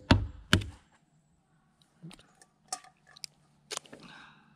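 Knife blade striking a hard cooked crab claw on a paper-covered wooden table: two heavy knocks close together right at the start. Then a few smaller cracks and clicks of shell breaking as pieces are pried off, with a brief rustle near the end.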